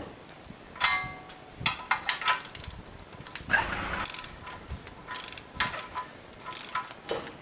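Metal clinks and scrapes of a hand wrench being fitted and turned on the nut under a truck's front steering knuckle. One clink about a second in rings briefly, a longer scrape follows midway, and lighter clicks come near the end.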